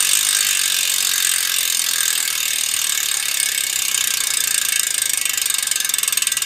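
Mercury S5 carbon disc wheel's freehub ratcheting as the wheel is spun by hand: a fast, loud, steady buzz of pawl clicks that slows into more distinct clicks near the end as the wheel spins down.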